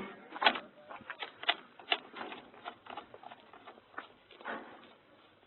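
Scattered short knocks and clicks from ground crew handling aircraft armament, loudest in the first two seconds and thinning out toward the end.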